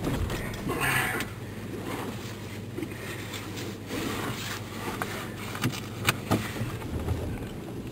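Vehicle engine running, heard from inside the cabin as a steady low rumble, with a few sharp clicks and knocks partway through.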